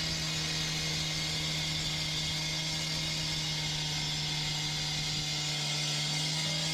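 A machine engine running steadily at one constant speed: a steady hum over a broad hiss, with no change in pitch or level.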